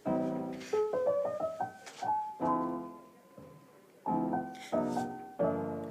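Piano music: struck chords and short melody notes that ring and fade, with a brief lull about three seconds in.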